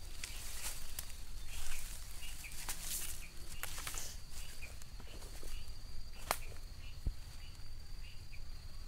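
Outdoor ambience of calling wild animals: a steady high-pitched drone and a short chirp repeating about twice a second. A few sharp clicks and rustles of handling are mixed in, the sharpest a little over six seconds in.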